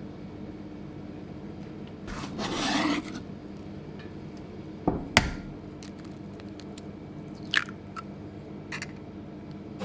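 A scrape across a cutting board lasting about a second as chopped onion is scraped off into a bowl, then a few sharp taps and clicks as eggs are cracked over a stainless steel bowl, over a low steady hum.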